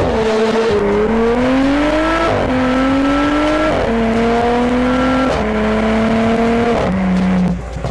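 Audi S4 B9's turbocharged V6 through a QuickSilver Sound Architect sport exhaust, accelerating through the gears in a tunnel. The exhaust note climbs steadily, then drops sharply at each upshift, about four times. It fades shortly before the end.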